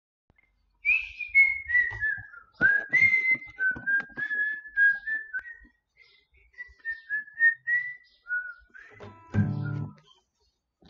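A person whistling a melody, one clear high tone stepping up and down in pitch, with a few acoustic guitar strings struck along with it. Near the end comes a short, louder low pitched sound.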